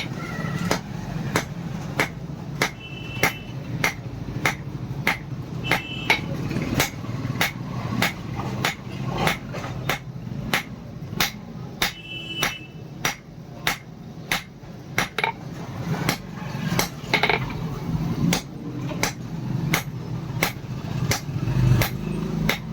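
Hammer blows on iron being forged into a knife blade, in a steady rhythm of about one and a half strikes a second, over a steady low hum.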